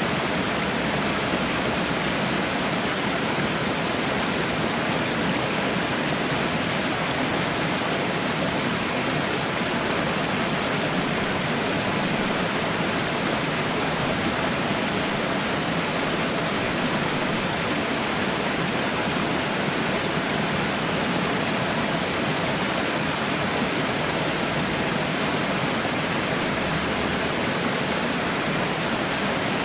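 Waterfall rushing, a steady, even roar of falling water with no breaks.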